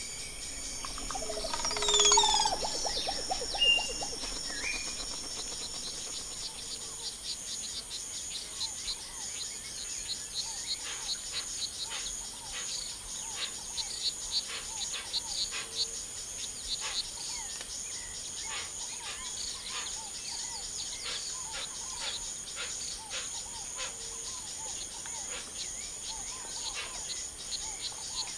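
Outdoor nature ambience: insects trilling steadily with birds calling and chirping. A louder call about two seconds in, a few short whistles soon after, and rapid chirps in the second half.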